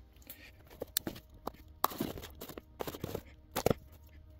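A cardboard shipping box handled on a workbench: irregular knocks, scrapes and rustles, with a few sharper clicks.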